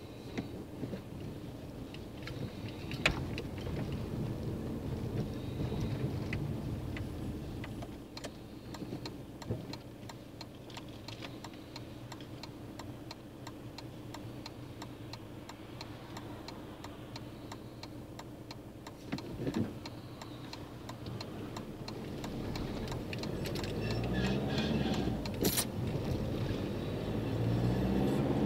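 Car engine and road noise heard from inside the cabin while driving, with a fine regular ticking through the middle stretch and a few sharp clicks. Near the end the engine revs rise twice as the car accelerates.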